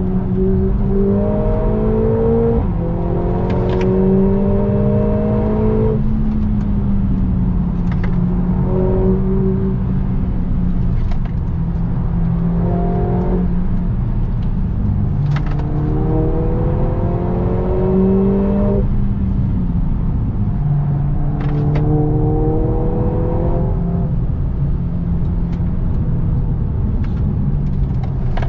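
Mercedes-AMG A45 S's turbocharged 2.0-litre four-cylinder engine heard from inside the cabin at track speed, revs climbing in several rising sweeps that each drop back sharply as the next gear is taken, with lulls in between where the car lifts off. A steady drone of road and tyre noise runs underneath, with a few short sharp cracks scattered through.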